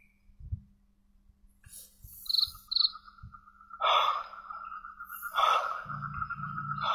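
A steady, high-pitched insect trill sets in about two seconds in, just after two short high chirps. Louder rustling noises come and go three times in the second half.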